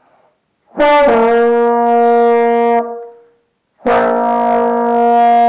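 Trombone played with the slide closed, sounding two long steady notes on the same pitch from buzzing lips and fast air: the first lasts about two seconds with a slight wobble in pitch as it starts, the second begins about four seconds in and is held on. The note is one of the higher tones available without moving the slide.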